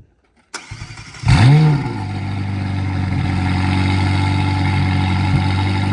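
McLaren 720S twin-turbo V8 starting up. It cranks briefly, catches about a second in with a rev flare that rises and falls, then settles into a steady idle.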